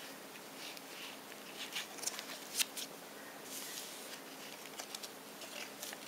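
Soft rustling and light clicks of paper being handled and pages turned in a tiny handmade paper-bag mini album, with a faint steady hum underneath.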